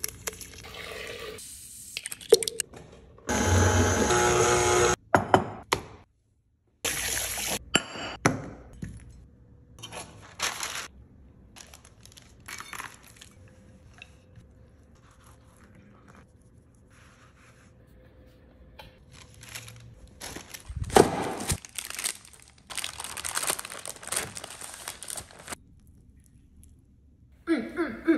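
A run of short kitchen and baking sounds cut one after another, among them a spatula working sugar in a glass bowl and a rolling pin on dough, with quiet stretches and a brief silent gap between them. A voice is heard briefly at the very end.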